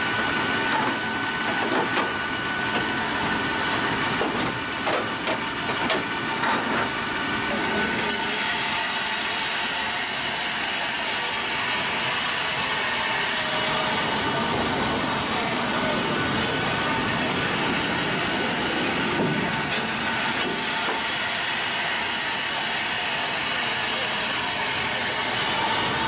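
Sawmill machinery running, a steady mechanical hiss and whir of saws and feed conveyors working a timber cant. A brighter hiss comes in about a third of the way through.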